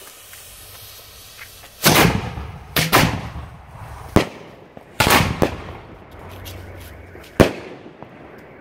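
Homemade multi-tube firework cake firing: a faint fuse hiss, then about seven sharp, irregularly spaced bangs over some six seconds as the shots launch and burst.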